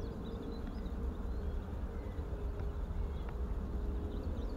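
A flying insect buzzing close to the microphone: a steady hum that breaks off briefly near the end, over a low rumble.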